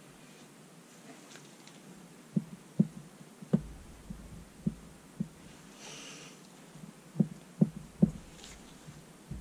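About eight short, dull thumps in uneven groups as gloved hands push and work a Detroit 4-53T crosshead piston crown down into its skirt, squeezing the lubricated Viton seal into place.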